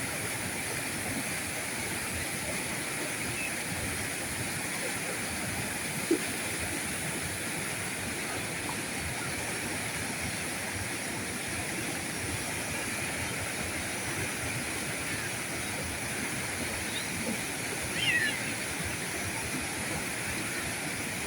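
River current flowing, a steady rushing of water. There is one sharp click about a third of the way in, and a brief chirp near the end.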